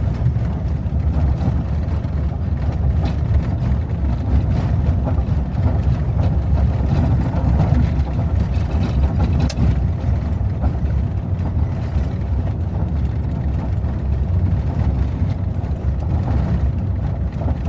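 Jeep driving on a gravel and dirt road on fully inflated tires: a loud, steady low rumble of engine and tyres, with a few light knocks and rattles.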